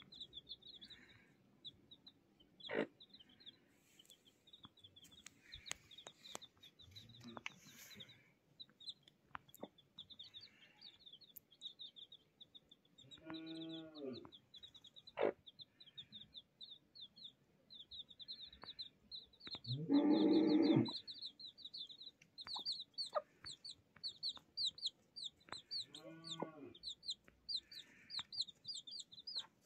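Newly hatched chicks peeping without pause in quick, short high chirps, while the mother hen clucks low three times, once longer and louder about twenty seconds in. A couple of sharp clicks are also heard.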